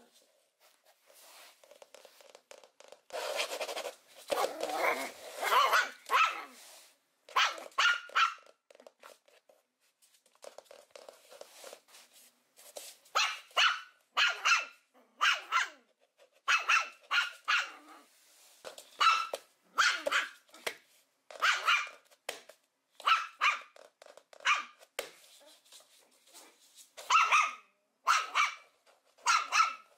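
Small puppy barking in short, high, repeated barks that come in quick clusters of two or three, with a longer, rougher stretch about three to six seconds in. These are play barks at a teasing hand, given from a play bow.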